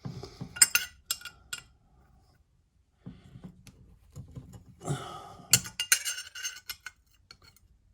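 Metal tools and small hardware being handled, with sharp clinks and rattles: a few early on, then a busier run of clinking about five seconds in.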